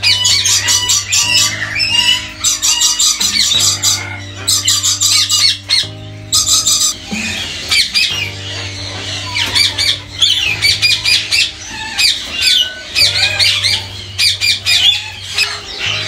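Lories screeching: dense, harsh, shrill calls in quick pulsing runs, over background music of sustained low chords that change every couple of seconds.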